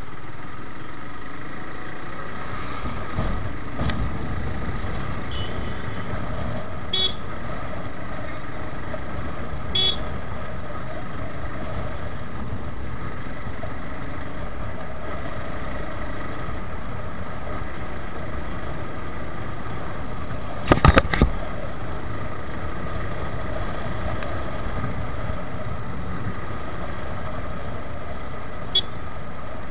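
Suzuki Gixxer motorcycle's single-cylinder engine running steadily while riding, with road noise. A few brief horn toots come through, and a short loud burst of several sharp hits about 21 seconds in.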